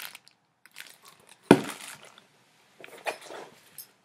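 Unboxing handling noise: the plastic-bagged fish finder mount is set down with one sharp knock about a second and a half in, then hands rummage in the cardboard box with light taps and rustles.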